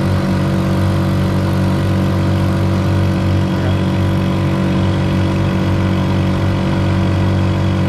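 Stock Honda Supra 125 single-cylinder four-stroke motorcycle engine, driving a boat's propeller, running steadily at high revs under load in top gear.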